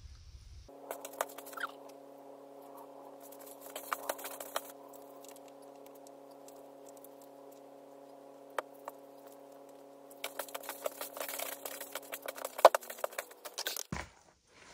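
Hands kneading soft pide dough in a plastic bowl, giving bursts of squishing, slapping and patting that are busiest near the end. Under it a steady machine hum runs, then drops in pitch and stops near the end.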